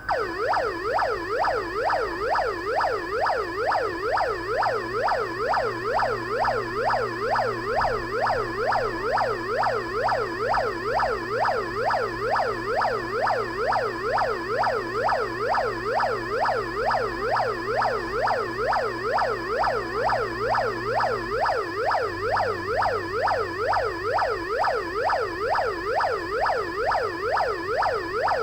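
Electronic police-siren tone generated by an Arduino sketch, sweeping rapidly up and down in pitch, about two sweeps a second, in an even repeating yelp. It starts abruptly.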